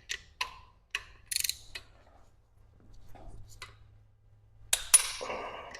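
Torque wrench on a connecting-rod cap fastener being tightened to 51 ft-lb: a series of light ratcheting clicks, then a sharp, louder click about five seconds in as the wrench reaches its setting.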